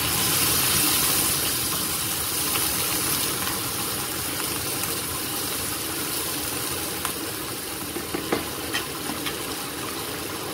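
A little water poured into a hot pot of frying chicken and meatballs hits the oil with a loud hiss. It settles into a steady sizzling simmer, with a few light clicks near the end.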